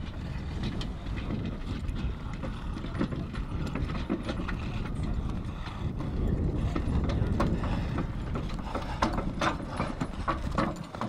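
A draft horse's hooves clip-clopping as it pulls a cart, under a continuous rattling clatter from the cart.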